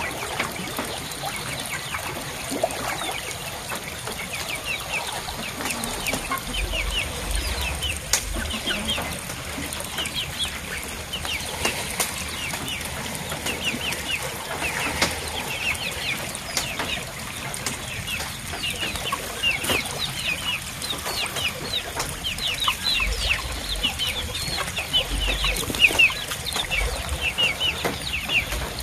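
Chickens peeping in a busy string of short, high calls, several a second, with a few dull low bumps in between.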